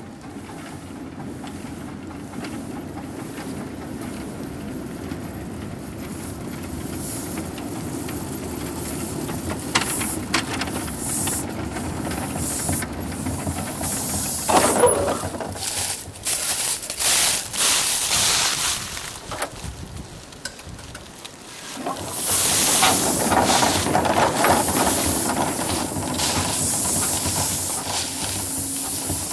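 Small-scale live steam locomotive with a short train coming closer, its steam hissing over clicks from the rails and growing louder. From about 22 seconds in a strong, steady hiss of steam is the loudest sound.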